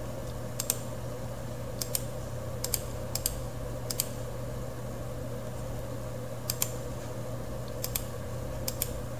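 Computer mouse clicking: about nine sharp clicks at uneven intervals, most a quick double tick, over a steady low hum.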